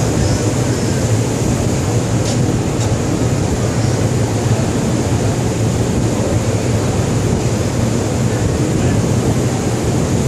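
Steady low drone of a ship's machinery, an even hum with a constant noise over it.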